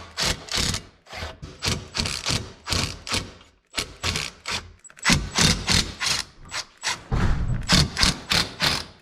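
A ratchet wrench clicking in a run of sharp clicks, a few a second, as the Allen bolts holding the Sea-Doo's rear piece are worked loose; the clicks get louder about five seconds in.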